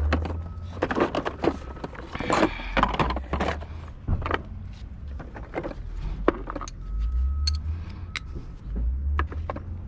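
Irregular clinks and knocks of metal tools and parts being handled while working on a car, with low rumbling handling noise on the microphone at times.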